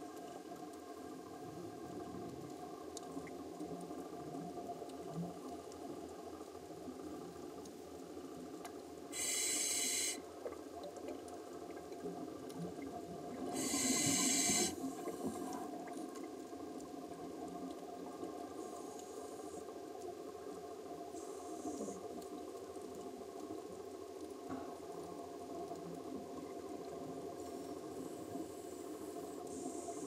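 Underwater ambience with a steady low hum, broken twice, about nine and fourteen seconds in, by a second-long hiss of a scuba diver's regulator breathing and bubbles, with a few fainter hisses near the end.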